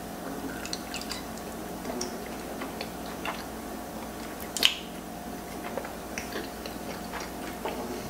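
Close-up chewing of creamy fettuccine alfredo: small wet mouth clicks and smacks at irregular intervals, with one louder sharp click about four and a half seconds in, over a faint steady hum.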